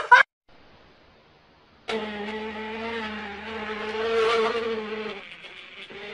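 A steady buzzing drone with a held pitch starts about two seconds in, after a moment of near silence. It swells a little in the middle and grows fainter near the end.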